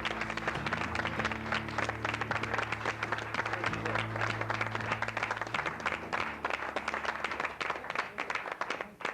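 Studio audience applauding over low held music chords. The music stops about six seconds in, and the clapping thins out near the end.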